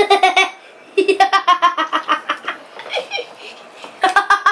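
A child laughing hard in three bursts of quick, repeated ha-ha pulses, with short pauses between.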